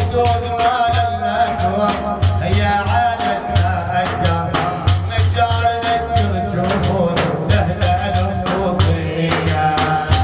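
Sufi madih praise song: a sung voice holding long notes over a steady, busy drum beat with a pulsing bass.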